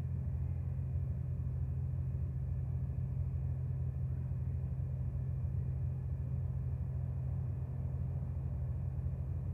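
A steady low rumble, even throughout, with no bells sounding.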